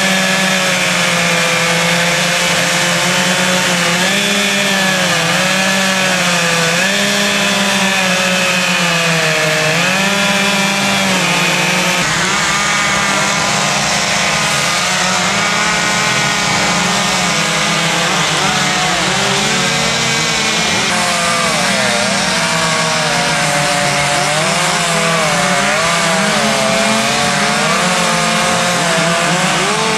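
Several two-stroke chainsaws run at once, cutting into wood. Their engine pitch keeps rising and falling as the revs change, with no break.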